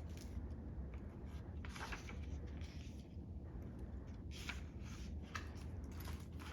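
Soft, scattered rustles and light handling noises from a picture book being opened, over a low steady hum.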